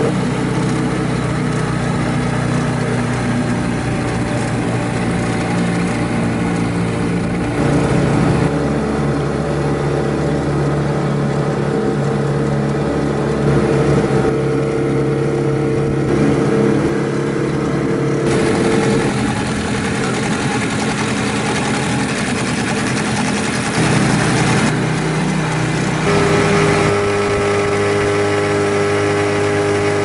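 Outboard motor of a small jon boat running steadily underway, its pitch shifting to a new steady note a few times.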